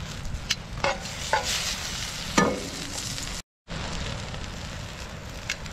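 Raw meatballs sizzling as they go into hot butter in a steel skillet, with metal tongs clicking and clanking against the pan several times. The sizzle drops out briefly about three and a half seconds in.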